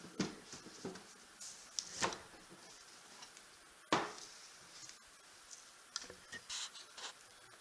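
A heavy boxed model kit being handled and turned over: a few knocks and scrapes against a surface, the loudest thump about four seconds in, with lighter rubbing sounds near the end.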